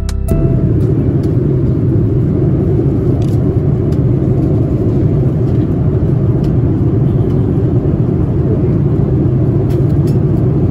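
Steady low rumble of an airliner cabin, the engines and airflow droning evenly, with a few faint clicks.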